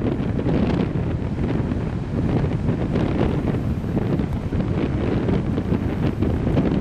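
Wind buffeting the camera microphone in uneven gusts, over the steady wash of breaking sea waves.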